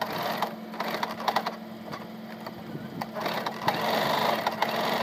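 Small white domestic electric sewing machine running, stitching through fabric with a steady low hum and rapid needle clatter. It gets louder from about three seconds in.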